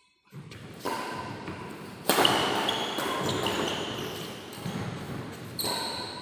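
Badminton rally on an indoor court: players' footsteps and shoe squeaks on the court floor with sharp racket hits, the hits about a second in, at about two seconds and near the end.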